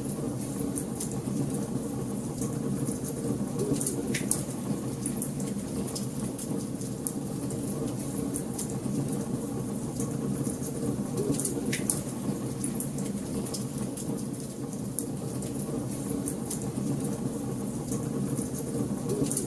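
Wood fire burning in a fireplace: a steady low rumble of flames with frequent small crackles and snaps, and a few louder pops.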